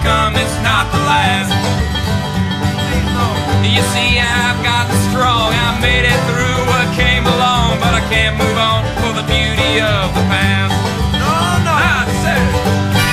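Background bluegrass music with banjo and guitar playing steadily.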